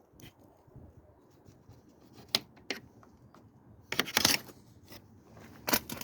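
Scattered sharp clicks and clinks, with a short rattling cluster about four seconds in.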